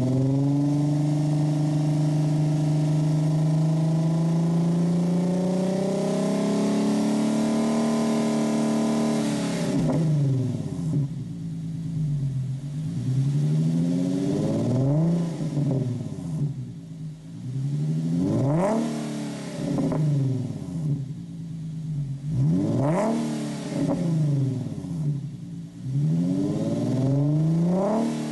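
Infiniti QX50's VQ37 3.7-litre V6 with the muffler removed, revved while parked and heard at the open exhaust tips. It holds at raised revs, climbing slowly for about nine seconds, then goes through a series of quick rev blips that rise and fall every couple of seconds, two of them sharper and higher.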